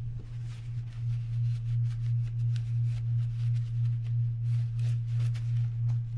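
A steady low hum with a slow, even waver runs throughout, under faint rustling and light clicks from handling a spinning reel and wiping its bail wire with a cloth shop towel.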